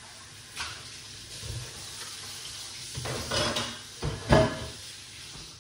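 Kitchen handling noises: dishes and utensils being knocked and moved, with louder clatters about three and four seconds in.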